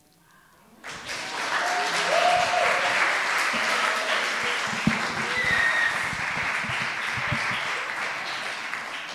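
Audience applauding, starting about a second in and tapering off near the end.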